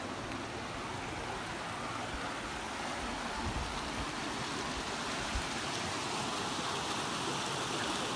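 Creek water rushing steadily over granite rock slides, a continuous even rush that grows slowly louder.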